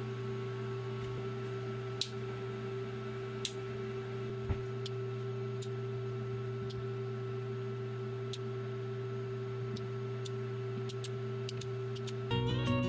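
A steady hum of several held tones, with a handful of sharp, separate clicks scattered through it. Guitar music cuts in near the end.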